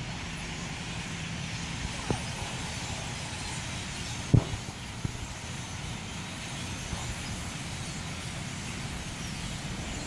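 Steady low outdoor rumble with a few short knocks, the loudest about four and a half seconds in.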